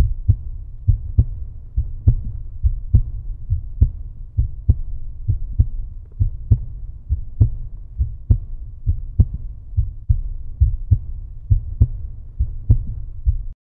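Deep, muffled rhythmic thumping, about two beats a second over a low rumble, like a heartbeat pulse; it cuts off suddenly near the end.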